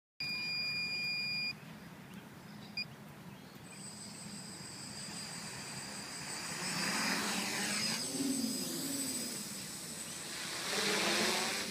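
A long electronic beep at the start, then the six electric motors and propellers of an H550 hexacopter running: a high steady whine over a low hum. Its pitch swings up and down as it lifts off, and it grows louder near the end as it climbs.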